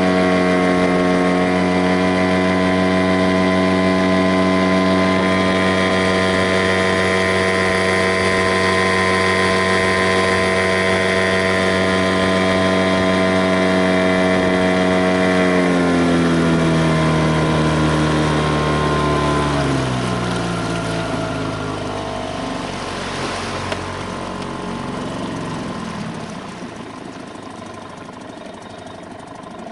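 An engine running at a steady speed, then throttling back about halfway through: its pitch falls over a few seconds and it gets quieter as it slows toward idle.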